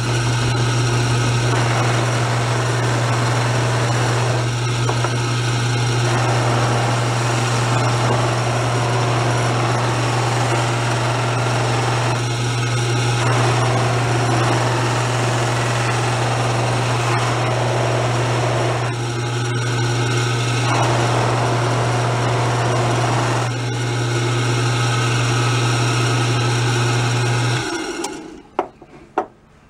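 Electric bench buffer running with cloth buffing wheels: a steady low motor hum under a loud hiss that changes now and then as a metal drum key is pressed to the rouged wheel to polish it. The motor is switched off near the end and the sound dies away.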